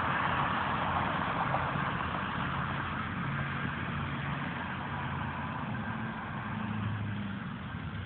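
Vehicle engine running with a low, steady hum whose pitch shifts a little, under a rushing road and wind noise that fades over the first few seconds.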